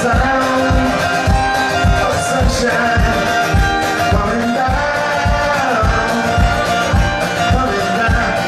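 Live acoustic music: two acoustic guitars strummed in a steady rhythm, a man singing over them, and a low thump on each beat.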